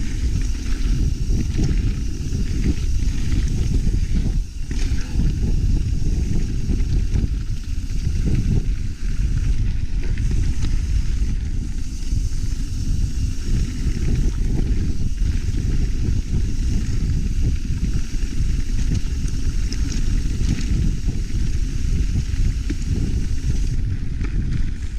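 Mountain bike ride heard on a GoPro mic: steady low wind buffeting and tyre rumble on the trail, with scattered knocks and rattles from the bike.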